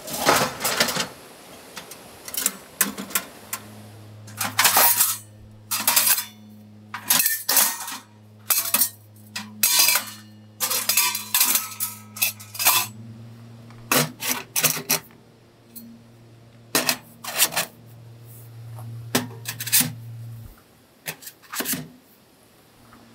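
Stainless steel Winnerwell wood-burning stove being unpacked and assembled: many sharp metallic clanks and clinks as its panels, side racks and chimney pipe sections are handled and fitted. A low steady hum runs from about three seconds in until shortly before the end.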